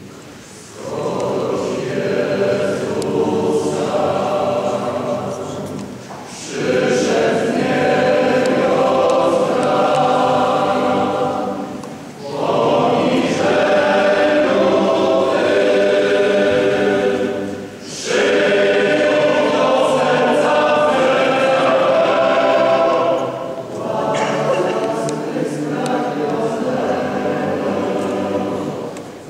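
Male choir singing a Christmas carol in long held phrases of about five to six seconds, with short breaks for breath between them.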